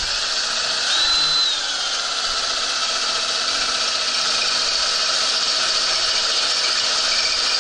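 Cordless drill running steadily under load, a small bit boring a starter hole through the steel rear frame of a Craftsman riding lawn mower. A short high squeal rises and falls about a second in.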